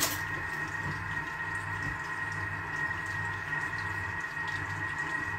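Thermomix running at low speed while heating at 98 °C: a steady hum with a thin, constant high whine and a low rumble that swells and dips.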